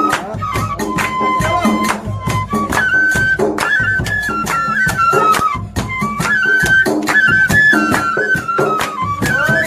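Live dhol and bansuri folk music: a dhol drum beats a steady rhythm under a bamboo flute melody that steps between held notes.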